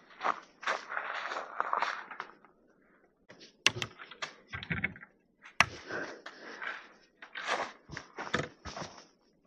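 Irregular rustles, scrapes and knocks of a person moving about and handling things, with two sharp clicks in the middle.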